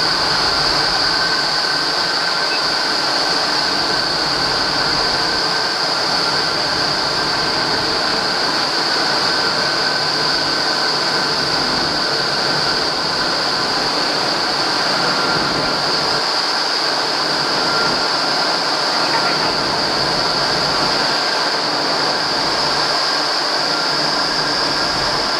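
Indoor skydiving vertical wind tunnel running at flying speed: a steady, loud rush of air with a high whine through it, heard through the tunnel's glass wall.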